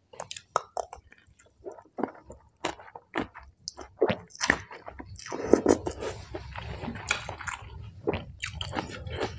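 Close-up chewing and wet mouth smacks of someone eating soft rice noodles in curry, a run of short squelchy clicks that grows louder and busier from about halfway.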